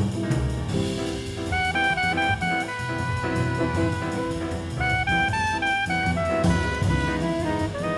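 Instrumental jazz background music, with a melody line stepping up and down over a drum beat.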